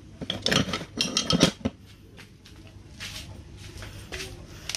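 Metallic clinking and rattling as new Bendix steel-backed brake shoes are handled in their cardboard box, a cluster of sharp clinks in the first couple of seconds, then softer handling noise.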